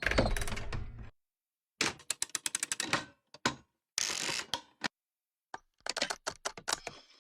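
Designed mechanical sound effects for a robotic armour suit: several short bursts of rapid clicking and clattering, the first with a low rumble and a later one with a brief whir, each cutting off into dead silence.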